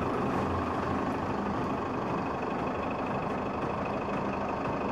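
Steady street traffic noise, with the even hum of a vehicle engine running close by.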